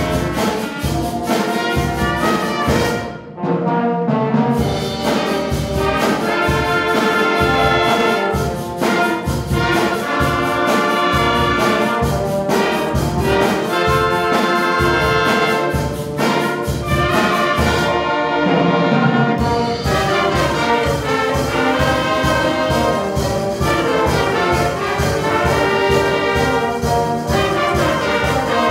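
High school band playing a holiday piece, with the brass leading over a steady beat. There is a brief drop in loudness about three seconds in.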